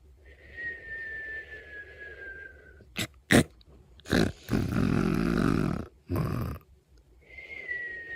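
Snoring: a thin whistling breath that slowly falls in pitch, then two sharp snorts about three seconds in, a rumbling snore around five seconds in, and the whistling breath again near the end.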